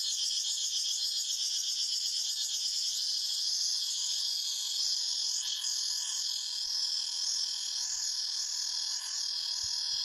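A chorus of cicadas buzzing steadily, a dense high-pitched drone with a fine rapid pulse that swells and eases slightly.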